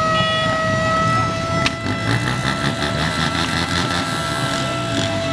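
A siren held on one steady pitch over the low rumble of idling motorcycle engines, with a single sharp click a little under two seconds in.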